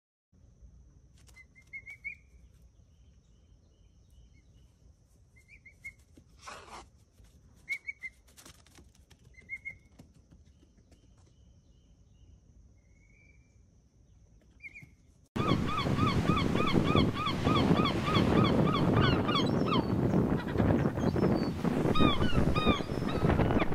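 Birds outdoors: a few faint short chirps over quiet ambience with a thin steady high tone. About fifteen seconds in, an abrupt cut to a loud, dense chorus of rapidly repeated honk-like calls from many birds.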